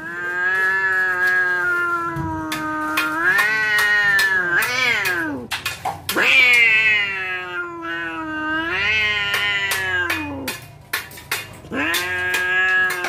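Domestic cat caterwauling: three long, wavering yowls, each bending up and down in pitch near its end, with short sharp noises in the gaps between them. It is the drawn-out threat yowl of a cat about to fight.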